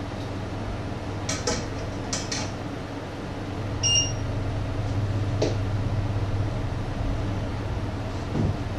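Metal clinks as a stainless steel steamer basket is set onto a pot on the stove, then a short electronic beep about four seconds in, over a steady low hum. A single click follows a little later, and a dull knock comes near the end.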